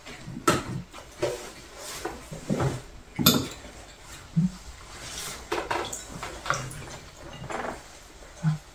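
Chopsticks and spoons clinking and scraping against ceramic bowls during a meal: scattered light clinks, the sharpest about three seconds in.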